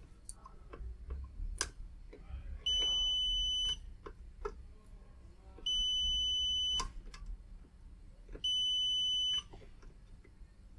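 Digital multimeter's continuity beeper sounding three times, each a steady high beep about a second long, as the probes bridge fuses one after another, with light clicks of the probe tips between. Each beep means a fuse has continuity and is intact.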